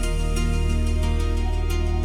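Music: steady sustained pitched chords over a deep held bass, with light ticks on top.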